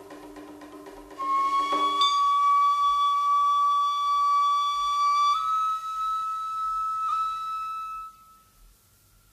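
Music: a flute holding long, high notes that bend slightly upward, starting about a second in and fading out near the end.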